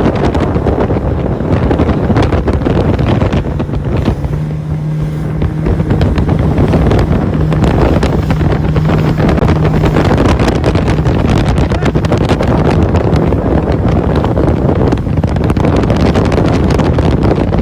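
Motorboat running under way, with heavy wind buffeting the microphone; a steady engine hum stands out for several seconds in the middle.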